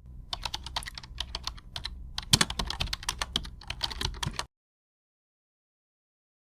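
Computer keyboard typing: a quick, irregular run of keystrokes for about four and a half seconds, then it cuts off suddenly into silence.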